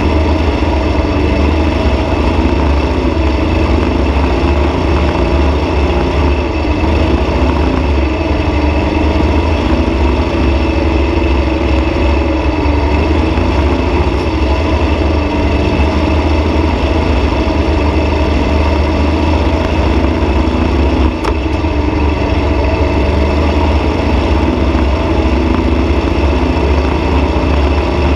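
Dune buggy engine running loud and steady at a near-constant pitch while the buggy drives across sand, heard close up from a mount on its roll bar.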